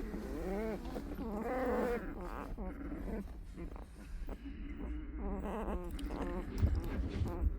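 Young puppies whimpering: several rising-and-falling cries in the first two seconds, then a run of shorter squeaks and whines.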